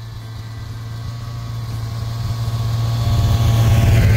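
A Lynx 550 snowmobile's two-stroke engine running steadily as the machine approaches, growing louder throughout and loudest near the end as it comes up close.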